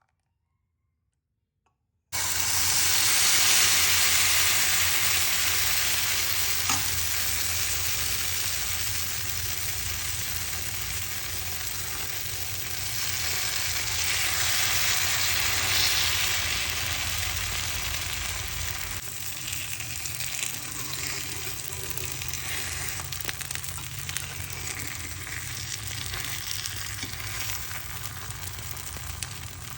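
Gur wale pude (jaggery-sweetened batter pancakes) sizzling as they fry in hot oil in a pan, a steady hiss that starts suddenly about two seconds in and swells for a while in the middle.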